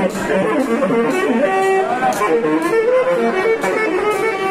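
Live band music: a saxophone playing a melody over drums, with cymbal strikes at irregular intervals.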